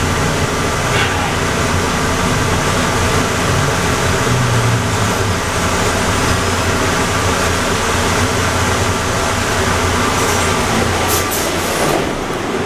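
Inside a car of the Atlanta airport Plane Train people mover: a steady hum and rumble, with a few short clicks a little after ten seconds in.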